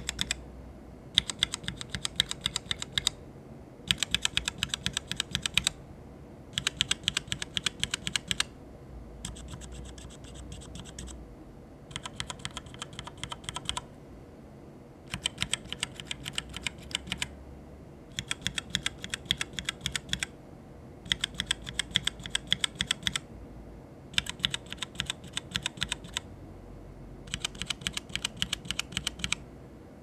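Mechanical keyboard switches on an acrylic-cased switch tester with thin plastic keycaps, pressed in rapid runs of keystrokes close to a microphone, one switch after another: about ten runs of quick clicking, each about two seconds long, with short pauses between them. The switches pressed include Cherry MX Brown and Kailh BOX Brown tactile switches.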